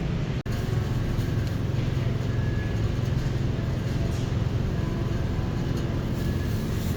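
Steady road and engine rumble heard inside a moving car's cabin. It briefly cuts out about half a second in.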